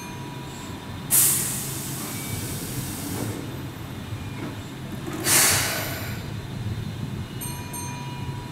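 A Keihan 6000-series electric train standing at the platform lets off compressed air in two loud hisses, the first about a second in lasting around two seconds, the second about five seconds in and shorter, over a steady low hum from the train.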